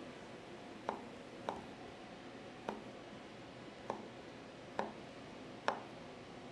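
Combat knife making repeated cuts through quarter-inch leather, a short sharp knock at each cut: six cuts at an uneven pace of roughly one a second.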